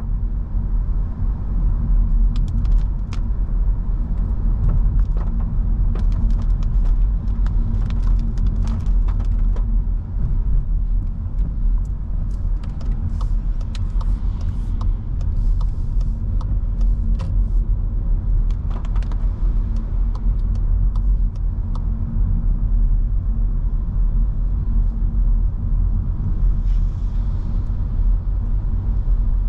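Cabin sound of a 2022 Skoda Scala 1.5 TSI driving on a wet road: a steady low rumble of tyres and engine, with many light scattered ticks through the middle stretch.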